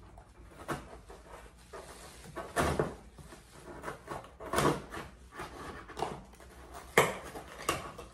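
Cardboard shipping box being opened by hand: its flaps scraping and rustling in irregular bursts, with one sharp crack about seven seconds in.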